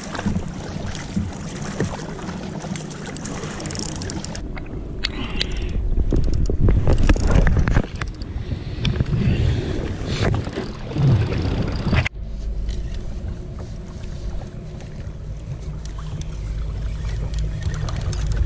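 Kayak being paddled: paddle strokes splashing and water rushing past the hull, over a low wind rumble on the microphone. About twelve seconds in the splashing stops abruptly, leaving the steady wind rumble.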